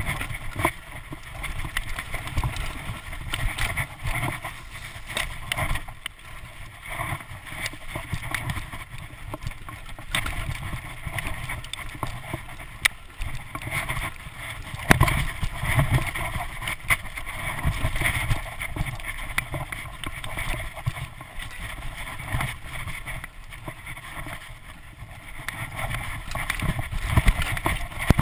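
Mountain bike descending a dirt singletrack, heard from a camera on the rider: wind buffeting the microphone and tyres rumbling over the dirt, with frequent sharp clacks and rattles as the bike hits bumps.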